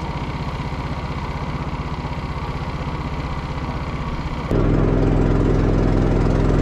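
An engine running steadily at an even speed, which turns suddenly louder about four and a half seconds in.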